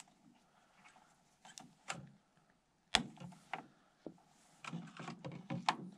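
A clear plastic fuel tank being worked out of a model airplane's fuselage by hand: scattered clicks and knocks, the loudest about three seconds in, then a quick run of clicks and rubbing near the end.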